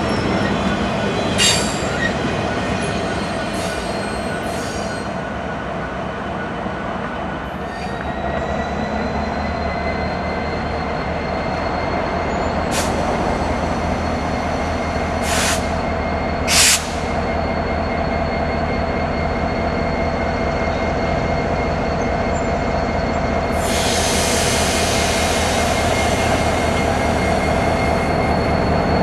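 Norfolk Southern EMD SD70ACe diesel locomotives approaching slowly at the head of a freight train, engines running with a steady low rumble and a steady whine. A few short high squeals come about halfway through, the last and loudest just past the middle, and a broad hiss begins about three quarters of the way in.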